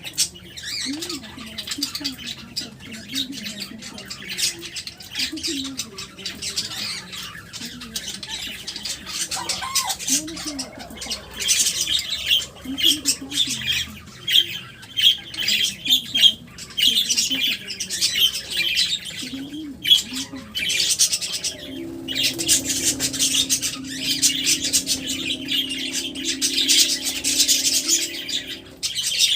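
Pet birds squawking and chattering, a steady stream of harsh calls that gets busier and louder about a third of the way in.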